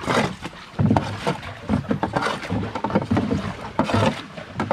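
Pile of freshly caught mullet being scooped and shifted by hand in a boat's hold, with plastic buckets knocking against the hull in an irregular clatter of wet handling and knocks.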